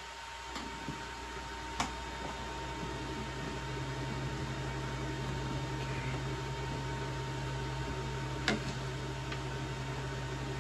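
Two sharp knocks, about two seconds in and again near the end, as gaming chair parts are handled during assembly, over a steady low electrical hum.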